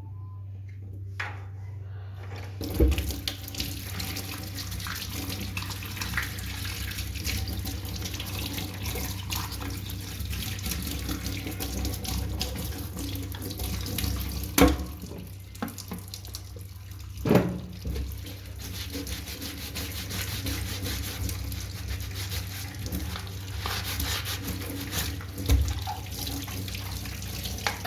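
Water running steadily from a tap into a sink, starting a couple of seconds in, with a few sharp knocks of things bumping in the sink.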